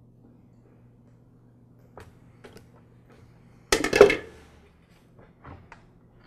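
Hand work on a mower's rubber fuel line and plastic fuel tank: a few light clicks, then a loud rustling scrape lasting about half a second a little past halfway, and a couple more small clicks. A faint steady hum runs underneath.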